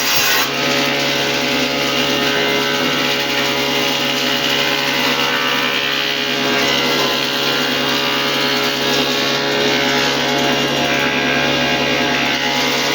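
An electric power tool running steadily while working wood, with a constant motor hum and cutting noise throughout.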